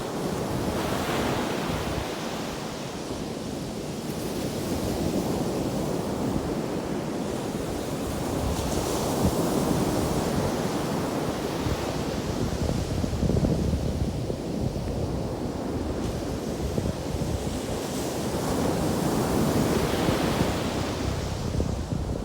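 Ocean surf: waves breaking and washing up the beach in a continuous rush that swells as a wave breaks about a second in, again near the middle and again near the end. Wind buffets the microphone throughout.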